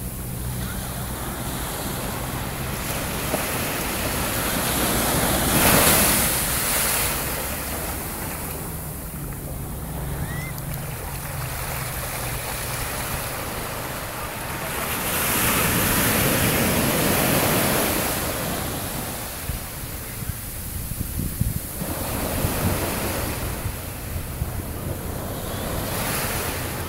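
Surf breaking and washing up a sandy beach, with wind on the microphone. The wash swells loudest about six seconds in and again from about fifteen to eighteen seconds.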